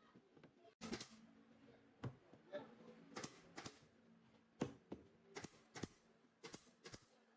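Irregular light taps and clicks, a few a second, from wood and hand tools being handled and set down.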